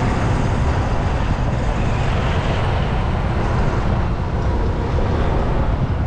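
Steady road and traffic noise: a dense, even rumble with no single event standing out.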